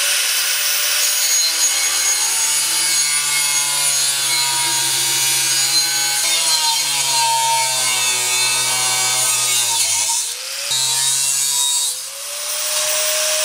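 DeWalt angle grinder cutting through steel 3-inch exhaust pipe, a continuous loud grinding with the motor whine wavering under load. The cut eases off twice near the end, and the motor whine rises as it speeds back up.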